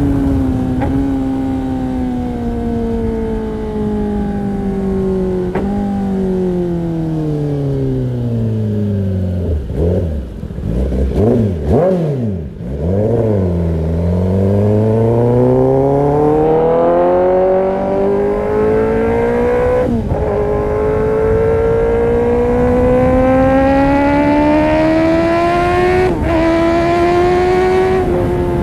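Kawasaki ZX-10R inline-four through an Arrow Pro-Race exhaust, revs falling steadily as the bike slows, wavering at low revs about halfway through, then climbing again under acceleration with two upshifts, the second about two seconds before the end.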